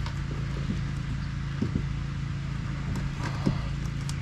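A steady low hum under a few light knocks and scrapes of handling as the new kill switch sensor wire is pulled through the plastic kayak hull.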